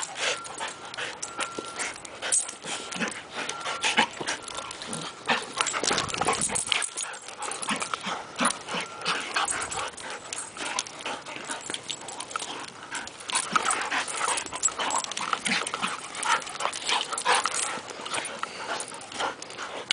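Two dogs, a Rottweiler mix and a shaggy grey dog, play-fighting, with a continuous string of short dog noises following one another throughout.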